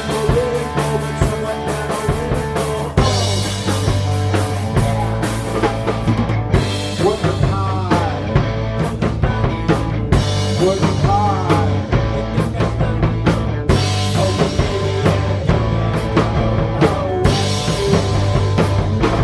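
Punk rock song played by a full band, driven by a drum kit with steady bass drum and snare hits, with sliding, bending notes over the beat around the middle.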